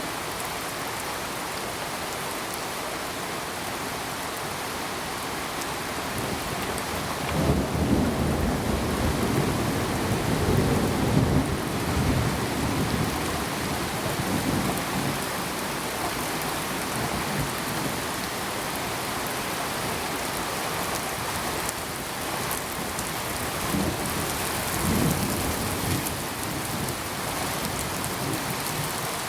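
Steady rainfall with rolling thunder: a long rumble swells about a quarter of the way in and lasts several seconds, and a shorter, weaker rumble comes near the end.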